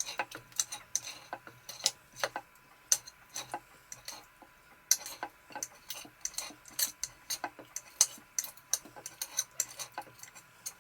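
Kitchen knife chopping octopus into sections: a quick, irregular series of sharp knocks, about three a second.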